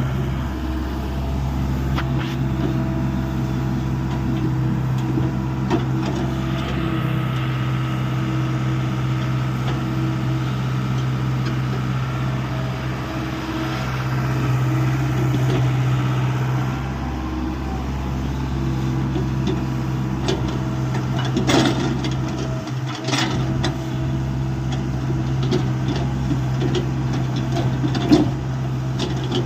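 Hyundai 85A mini excavator's diesel engine running steadily, its note and load shifting a few times as it works. A few sharp knocks come in the second half, the loudest near the end.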